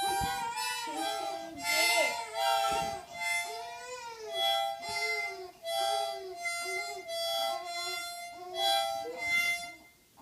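Harmonica blown in a run of short, uneven notes and chords, one puff about every half second to second, stopping shortly before the end.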